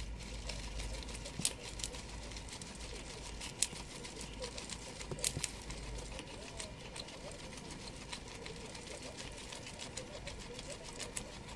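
Guinea pig chewing dandelion leaves up close: a fast, uneven run of crisp clicks and crunches, with a few sharper clicks now and then.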